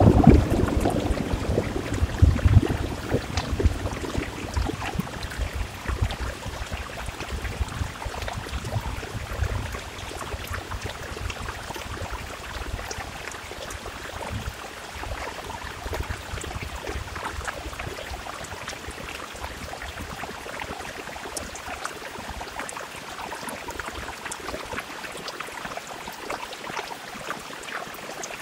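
Steady rain falling and pattering on window glass, with a low thunder rumble that fades away over the first ten seconds or so.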